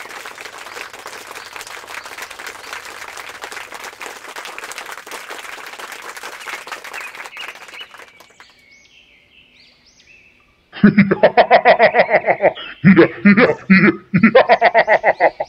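A steady crackling hiss for about eight seconds, then a short near-quiet gap. After that comes loud, rapid high-pitched laughter in three runs of quick ha-ha pulses.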